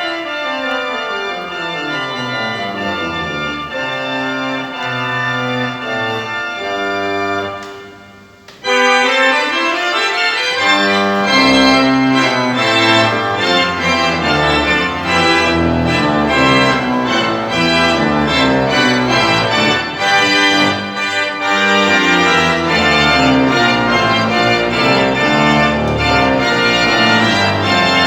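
Pipe organ playing in concert: descending runs over the first few seconds, a sudden brief drop near eight seconds, then louder, full chords with fast figures.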